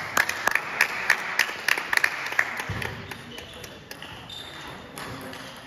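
Table tennis balls clicking off bats and tables: a quick, irregular run of sharp ticks that thins out after about two and a half seconds. Voices in the background.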